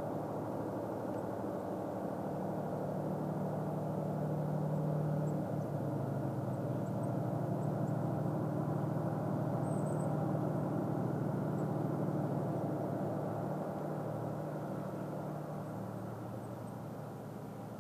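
Diesel engines of a DF200 'Red Bear' diesel-electric freight locomotive running with a steady low drone. The drone swells in the middle, its note shifts slightly lower about five seconds in, and it eases off a little near the end.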